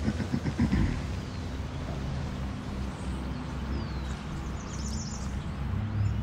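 Outdoor ambience beside a small river: a steady low rumble with a short burst of rustling or splashing in the first second, a few faint bird chirps, and a low steady hum that comes in near the end.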